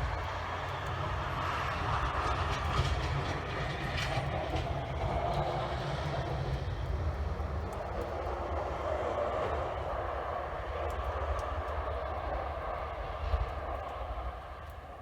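A distant vehicle passing, heard as a steady low rumble with a rushing hiss that eases off near the end.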